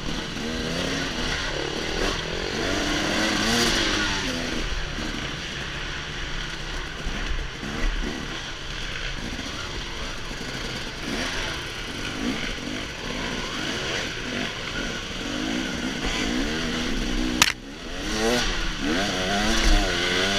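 Dirt bike engines revving up and down with the throttle, the on-board bike loudest, heard from a helmet-mounted camera over steady rushing noise. A sharp click about three-quarters through, with a brief drop in sound.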